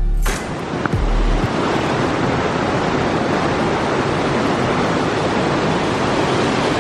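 Swollen river rushing fast over rocks in churning white water, a loud, steady rush of water.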